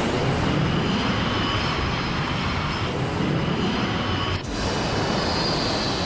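Jet airliner engines at takeoff power: a loud, steady rush with a faint high whine as the MD-82 accelerates down the runway and lifts off. The sound dips briefly about four and a half seconds in, then carries on.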